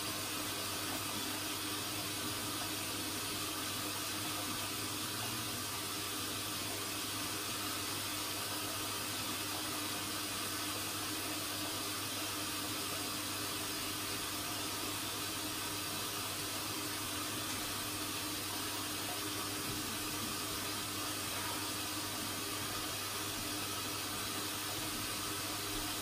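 Hoover Zodiac 12 front-loading washing machine in its rinse stage: a steady rush of water with a faint low hum, unchanging throughout.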